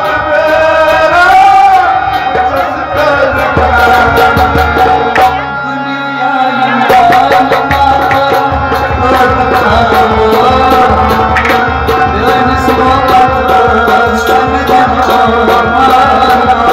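A man singing a Kashmiri song over a harmonium, with steady hand-drum beats. The drum and the low end drop out briefly about six seconds in, then the beat resumes.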